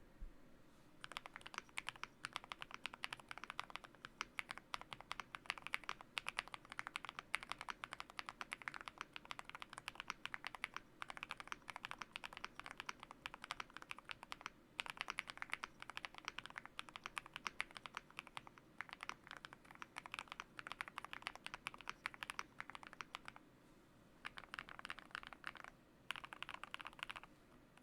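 Typing on a Yunzii YZ98 mechanical keyboard with Wuque Studio Aurora Pink switches, lubed with Krytox 205g0, and with tape mod and case foam. It is a fast, dense run of key clicks starting about a second in, broken by a few brief pauses.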